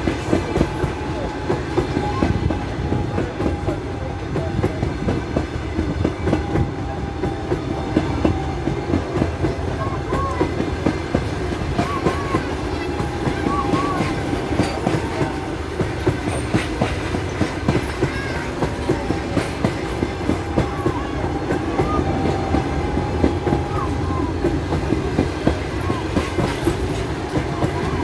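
Russian Railways passenger coaches of a long train rolling past, a steady rumble with the wheels clicking over the rail joints all through.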